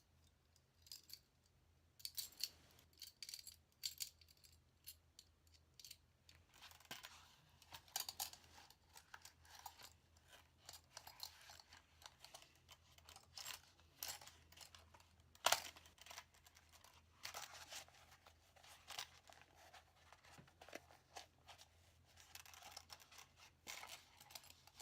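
Steel handcuffs clicking and scraping against a handcuff case as they are forced into it, a case too small for them. Faint, irregular clicks and rustles.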